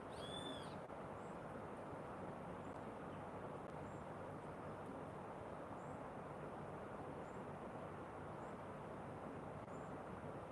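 A bird gives one short call, rising then falling in pitch, just after the start, over a steady rushing background noise, with faint short high chirps every second or two.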